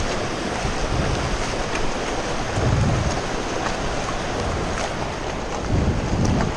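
Shallow rocky mountain creek rushing over stones close by as it is waded through, with low rumbles every second or two.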